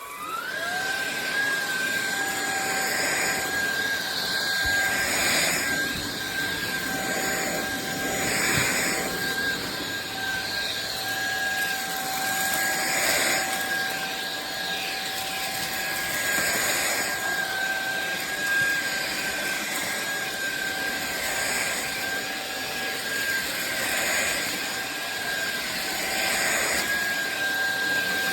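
Cordless stick vacuum cleaner switched on, its motor spinning up with a quickly rising whine and then running steadily: a high whine and a lower hum over the rush of suction, swelling and easing every couple of seconds.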